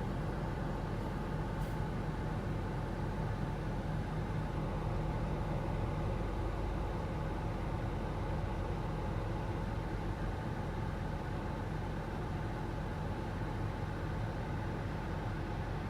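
Steady low rumble of a Mitsubishi Delica D:5 clean-diesel minivan running with its air conditioning on, unchanging throughout.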